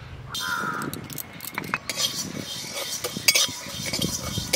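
Metal spatula scraping and stirring coriander and fennel seeds around a dry steel kadai, the seeds rattling against the pan as they dry-roast, with a few sharp clinks of the spatula on the metal.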